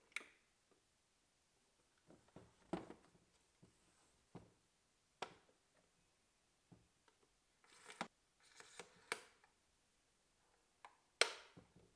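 Plastic clicks and knocks from handling a portable CD player: a click right at the start as the CD lid is pressed shut, then scattered taps, short rustles and clicks as its telescopic antenna is handled, with the sharpest knock near the end.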